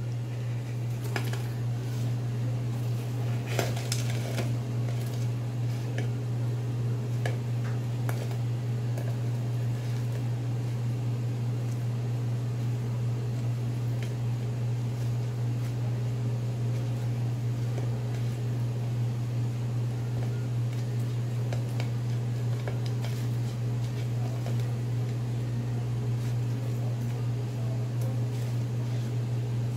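Fried chicken wings, cheese sticks and fries tipped from a stainless mesh strainer onto a plate and arranged by hand: scattered light clinks and knocks, most of them in the first several seconds. Underneath, a steady low mechanical hum.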